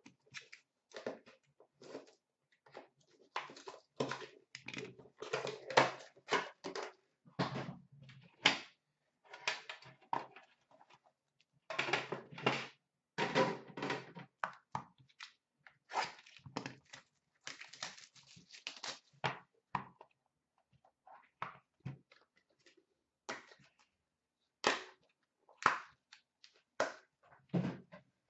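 Hands unboxing a sealed Upper Deck The Cup hockey card tin and its pack and handling the cards: irregular rustling, crinkling and clicking, with a few sharper thunks.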